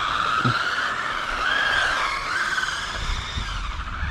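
Whine of a small 1/16-scale brushless RC car's electric motor, its pitch rising and falling as the car speeds up and slows down.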